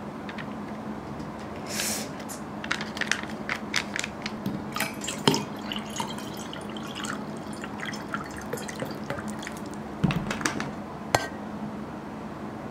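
Water poured from a plastic bottle into a stainless steel tumbler, with the thin plastic bottle crackling and clicking in the hand. A few sharper knocks come about ten and eleven seconds in.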